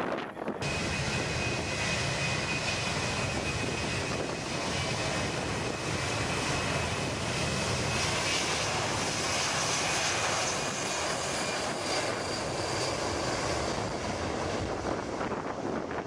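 Aircraft engine noise with a thin high whine, starting abruptly, swelling to its loudest about halfway through and easing off toward the end, as an aircraft passes.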